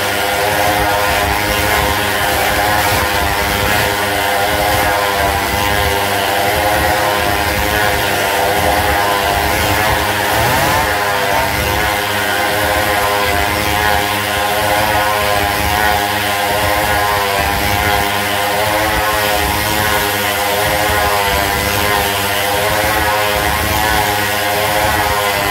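Motorcycle engines running hard as riders circle the vertical wall of a wooden wall-of-death drum. The engine note rises and falls steadily as the bikes lap.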